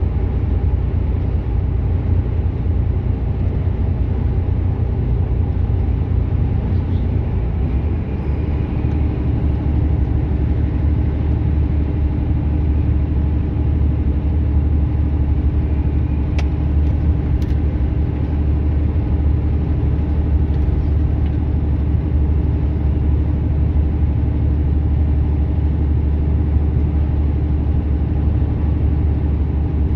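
Truck cruising on a motorway, heard from inside the cab: steady low engine drone and road noise, with a steady hum that grows stronger about eight seconds in.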